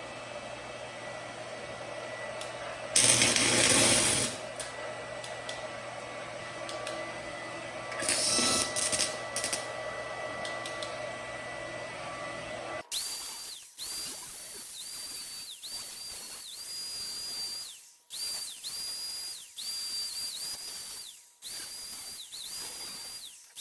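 A cheap stick welder's cooling fan humming, with two short loud crackling bursts as the rod strikes an arc to tack the work. After that comes a string of short arc runs, each one to two seconds long with a steady high whine, broken by brief gaps.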